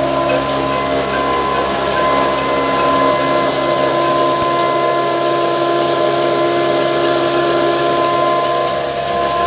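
Flour mill (chakki) running, driven by a Hassan Company 22 HP desi black diesel engine turning at about 275 RPM: a steady machine hum with a constant high-pitched whine.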